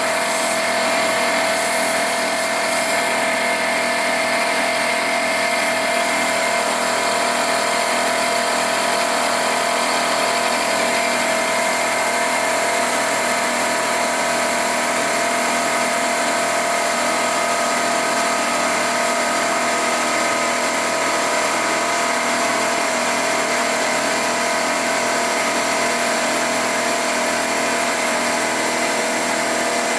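Milling machine running steadily with a constant-pitched whine, its cutter machining a Volkswagen five-cylinder main bearing cap.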